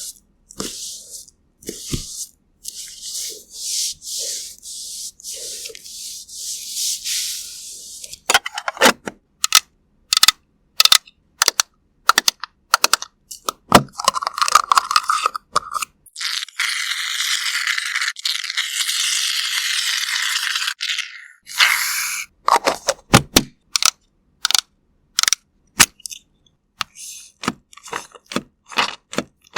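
Close-miked ASMR makeup-application sounds. Soft repeated brushing strokes, then a long run of sharp clicks and taps, a steady hiss lasting about five seconds just past the middle, and more taps near the end.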